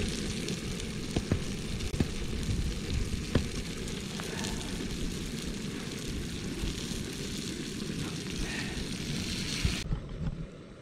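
Fish frying in a pan on a gas canister backpacking stove: a steady sizzle with scattered pops and crackles over the low rush of the burner. It cuts off about a second before the end, leaving a quieter hiss.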